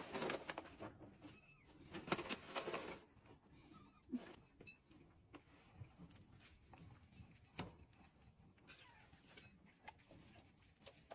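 A cat vocalizing in two short, noisy bursts of about a second each, one at the start and one about two seconds in, followed by faint scattered clicks.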